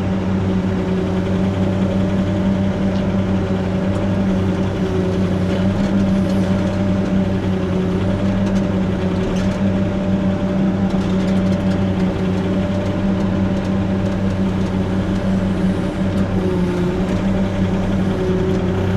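Diesel engine of a construction machine running steadily at a constant speed, with an even pitch throughout.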